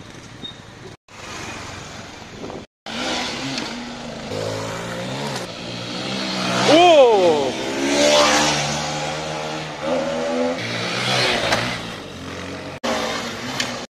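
Small motorcycle engine revving up and dropping back several times as it accelerates, the sharpest rise and fall about seven seconds in. The sound cuts out briefly twice near the start.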